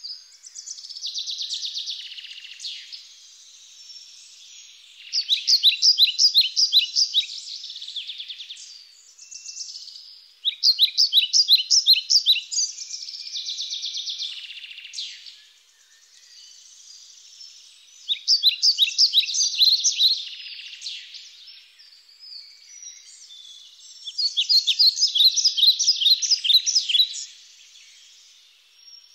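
Birds calling in four loud bouts of rapid, high trilled chirps, each two to three seconds long, with fainter high chirping between the bouts.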